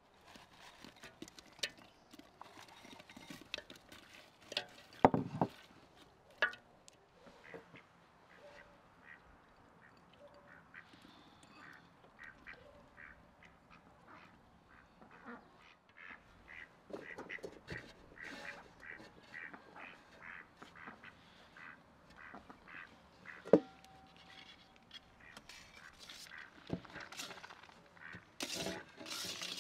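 Cooking clatter of a large aluminium pot and a metal colander: scattered clicks and scrapes as chestnuts and boiled rice go into the pot, with two loud knocks about 5 and 23 seconds in. Ducks quack in short runs in the background.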